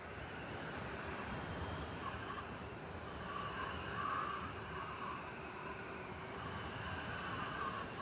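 Blizzard wind rushing steadily through a city, over a low rumble of traffic; a higher hiss swells and fades, loudest about halfway through.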